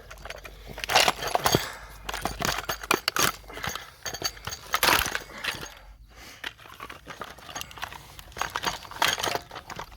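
Irregular cracks, clinks and knocks of hand tools working the plastic fuel tank housing off a Poulan Pro chainsaw to take it apart.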